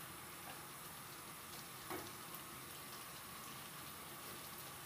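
Sayote and sardines sizzling faintly in a frying pan, a soft steady frying hiss, with one light knock about two seconds in.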